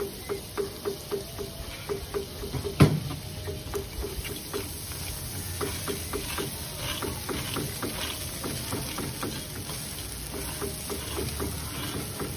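Rava dosa frying on a hot iron griddle, with a metal spatula scraping and tapping across it. Quick even ticks run for the first three seconds, and one sharp metal clank comes about three seconds in.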